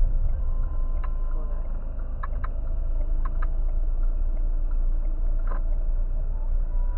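Steady low rumble of a car's engine and tyres heard from inside the cabin while driving through a right turn, with a few short clicks scattered through it.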